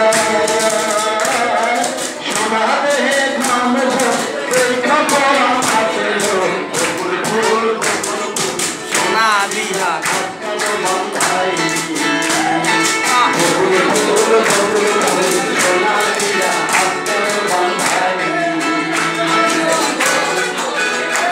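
Live acoustic performance of a Bengali folk song: a man singing into a microphone over strummed acoustic guitar and ukulele.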